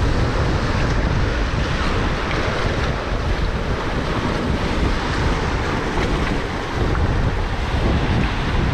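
Sea surf washing and sloshing among shoreline boulders, with strong wind buffeting the microphone in a steady low rumble.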